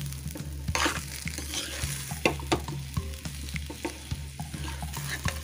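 Mashed-potato bharta frying in oil in a pan, roasted on medium flame while it is stirred and pressed with a steel spoon: irregular scrapes and taps of the spoon against the pan over a light sizzle. A steady low hum runs underneath.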